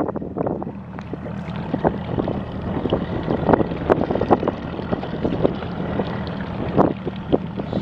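A steady low hum with wind buffeting the microphone, and scattered short knocks and clicks coming at irregular times.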